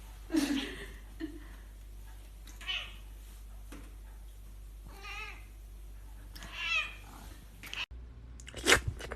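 A cat meowing again and again, about five separate meows, several of them wavering in pitch. Near the end the sound cuts out abruptly and a couple of short, louder sharp sounds follow.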